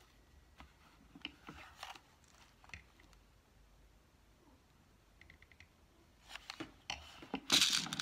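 Faint clicks and rustles of hands working a satin-ribbon craft flower with a hot glue gun on a wooden table, then a louder burst of rustling and clatter near the end as the glue gun is set down.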